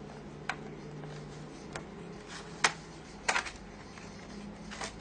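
Sharp plastic clicks and snaps as the bottom access cover of a Toshiba Satellite L850 laptop is pried at its clips with a screwdriver; the clips are stiff on a new cover. About five clicks, the loudest a little past halfway, with a quick cluster of snaps right after it.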